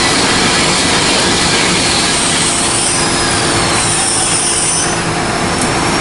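Power sander running steadily on body filler, a loud, even grinding noise with a faint steady hum underneath.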